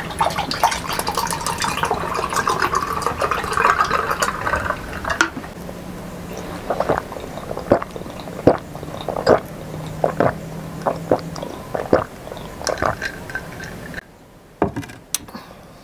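A drink poured from a bottle over ice into a glass mug for about five seconds, the filling sound rising slightly in pitch as the mug fills. Then gulping from the mug, heard as a run of short separate sounds.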